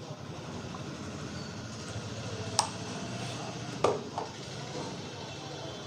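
Three sharp taps, one about two and a half seconds in and two close together near four seconds, over steady street traffic noise.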